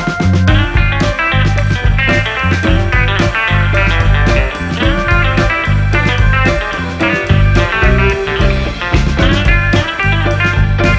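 Background music: a guitar-led rock track with bass and a steady drum beat.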